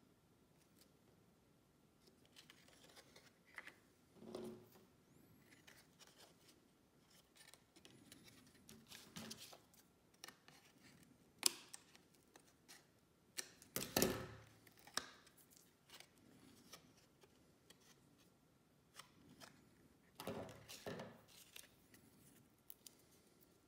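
Scissors snipping through printed snack packaging in separate short cuts with pauses, together with small handling sounds of the pieces. The loudest snips come about halfway through, with another cluster near the end.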